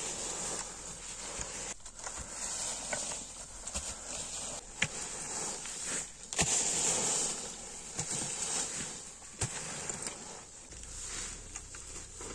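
Metal-tined rakes scraping and rustling through dry fallen leaves on the ground, with a few sharp clicks of the tines scattered through.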